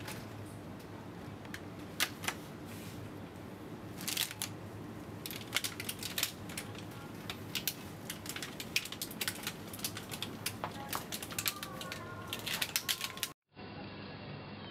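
Plastic egg cartons being picked up and handled, making many sharp, irregular clicks and crackles over a steady low background hum. The sound cuts off abruptly near the end and gives way to a duller, muffled room sound.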